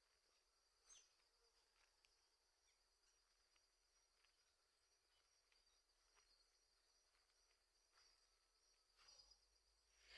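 Near silence with faint, steady high-pitched insect trilling, like crickets, and a few soft clicks.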